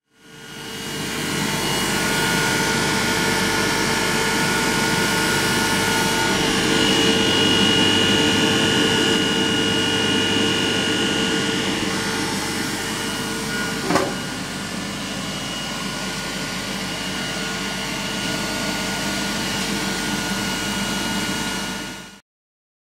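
Pre-WWII Brown Boveri welder-generator running: the three-phase induction motor and the DC dynamo on its shaft make a steady hum and whine. There is one sharp click a little past the middle.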